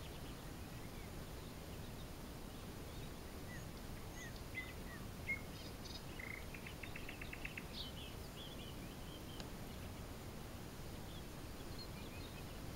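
Open-country ambience: a steady low background hiss under scattered small songbird chirps, with a quick trill of about ten notes about halfway through.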